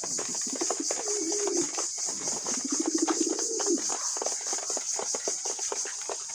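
Pigeons pecking at food, a rapid, irregular clatter of beak clicks, with two low coos: a short one about a second in and a longer, falling one about three seconds in.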